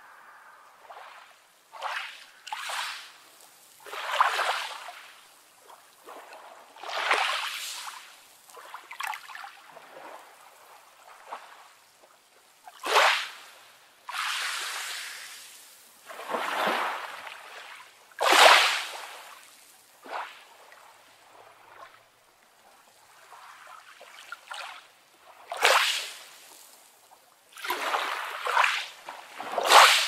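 Small sea waves breaking and washing up a sandy shore, one hissing surge every two to four seconds, each rising and then fading as the water draws back. There is little deep rumble, and the strongest surges come about halfway through and near the end.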